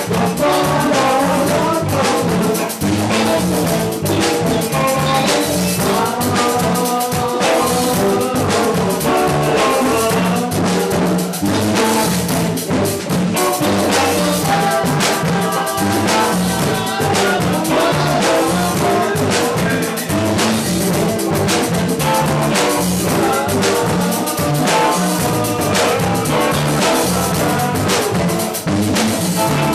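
Live Latin band music: congas and drums keep a steady rhythm under an electric guitar and a man singing.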